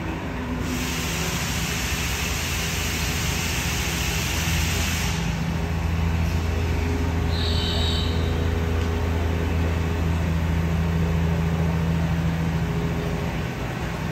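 Mori Seiki NV-5000 CNC vertical mill cutting a workpiece with an end mill under coolant: a steady machine hum. A bright hiss rides over it from just after the start until about five seconds in.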